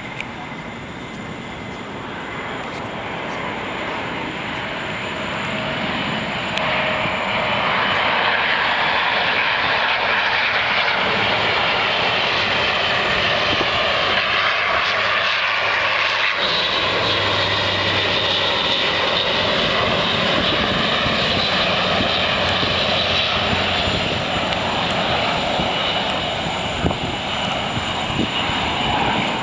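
Airbus A400M's four turboprop engines and propellers during a low airshow flypast, a steady loud rushing drone. It grows louder over the first several seconds as the aircraft approaches, holds steady, and eases slightly near the end.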